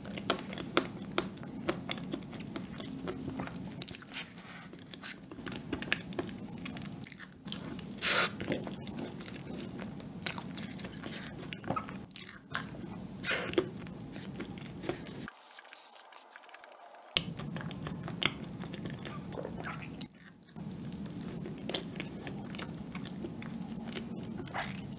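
Close-up eating sounds of a soft chocolate cup pudding eaten from a wooden spoon: wet chewing, lip smacks and scattered small clicks.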